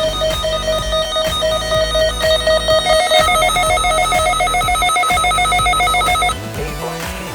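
Weather radio receivers sounding their alert alarms, triggered by the weekly test signal: rapid electronic beeping, about five beeps a second. A second, higher-pitched beeping alarm joins about three seconds in, and both cut off about six seconds in.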